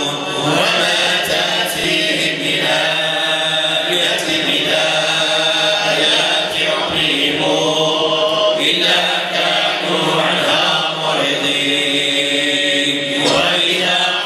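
Sufi devotional chanting by a group of men's voices, the same phrase sung over and over in long held notes, each phrase lasting a second or two.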